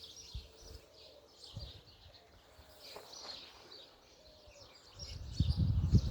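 Small birds chirping outdoors, joined about five seconds in by a louder low rumble.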